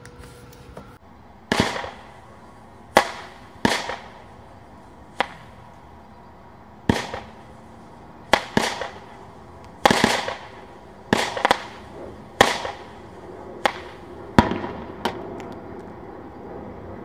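Brothers High Flyers nine-shot aerial firework cake going off: a string of sharp bangs, roughly one a second, as its shots fire and break overhead.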